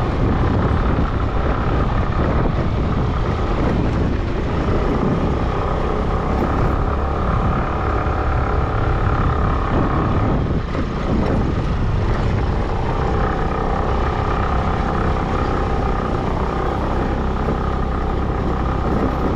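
Motorcycle engine running steadily while riding over a rough gravel and dirt road, with a dense low rumble underneath. The engine note fades about ten seconds in and picks up again a couple of seconds later.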